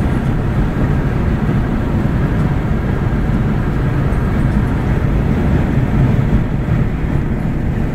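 Steady low rumble of tyre and engine noise heard from inside a car's cabin while it cruises along a highway.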